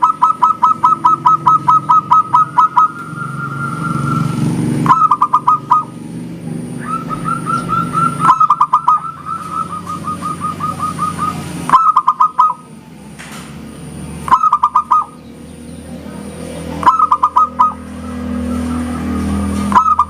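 Zebra dove (perkutut) cooing: repeated phrases of quick clipped notes, one long rattling run at the start and then short bursts every few seconds, some ending in a drawn-out note. A low rumble runs underneath.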